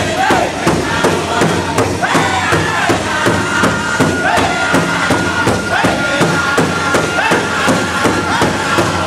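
Powwow drum group singing together over a large shared hand drum, the drum struck in unison in a steady beat of about three strokes a second.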